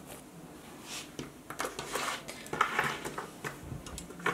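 Paracord being handled and pulled tight, with soft rustling swishes and scattered small clicks and clinks.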